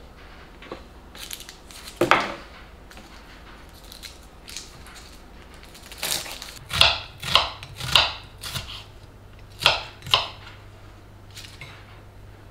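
Kitchen knife chopping shallots on a wooden cutting board: separate sharp knocks, one about two seconds in, a run of four or so a little past the middle and two more near the end.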